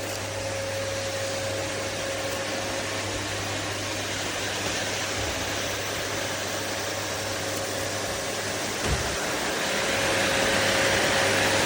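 Siemens Z 7.0 bagged vacuum cleaner running, a steady rush of air with a constant whine, growing louder about ten seconds in. A single short thump about nine seconds in.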